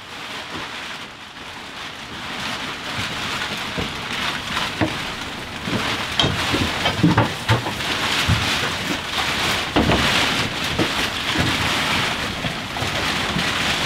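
Steady pattering of rain, growing louder after a fade-in, with scattered knocks and footsteps as several people walk in.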